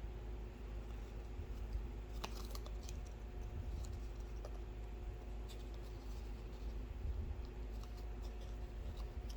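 Handling noise: scattered faint small clicks and scratches over a steady low hum.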